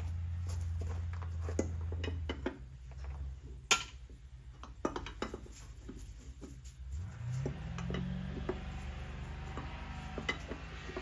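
Scattered metallic clinks and clicks of hand tools and lug nuts being worked on a golf cart wheel, the loudest a sharp click about four seconds in. A steady low hum drops away a little after two seconds, and a low drone rises in pitch about seven seconds in.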